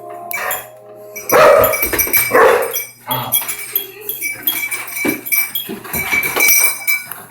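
A dog barking: two loud barks about a second and a half and two and a half seconds in, followed by quieter, shorter sounds.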